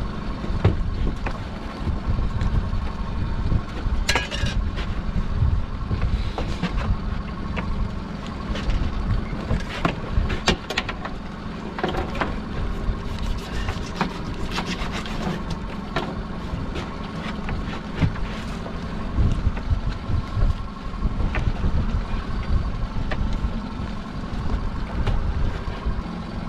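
A boat's engine running steadily under wind buffeting the microphone, with scattered knocks and rattles of lobster pots being handled and stacked on deck, busiest through the middle.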